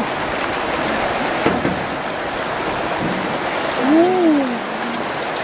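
Shallow river running steadily over rocks, a continuous rushing hiss of water. About four seconds in, a woman gives one short exclamation that rises and falls in pitch.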